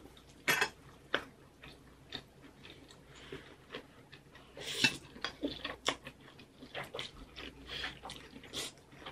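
Close-up eating sounds: buldak fried noodles slurped and chewed, with chopsticks clicking against metal bowls in short sharp clicks.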